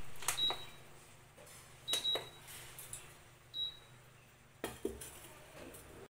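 Bajaj induction cooktop's control panel beeping as its buttons are pressed: three short high beeps, the first near the start, one about two seconds in and one past three and a half seconds, with finger taps on the panel. About four and a half seconds in, a knock as a steel pot of water is set down on the glass top, over a low steady hum.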